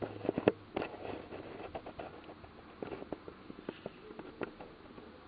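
Irregular light clicks and taps over faint room noise, with a few louder ones in the first second.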